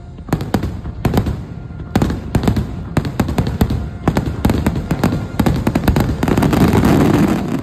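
Aerial fireworks display: many sharp bangs, several a second, over a continuous crackle and rumble, building to a dense, loud barrage a little before the end.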